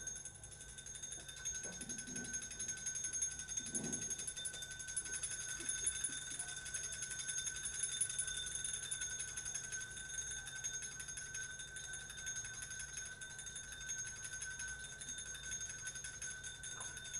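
Live electronic improvisation: a steady cluster of high ringing tones with a fine shimmer running through them, and a few soft low blips in the first few seconds.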